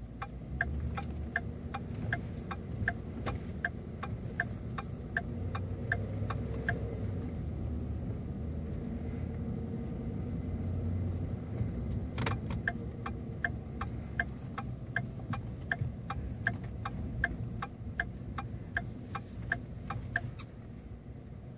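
Ford pickup's turn-signal flasher clicking in an even, steady rhythm over the low rumble of the engine as the truck creeps along. The clicking stops about seven seconds in. After a single sharp click near the middle it starts again, then stops shortly before the end.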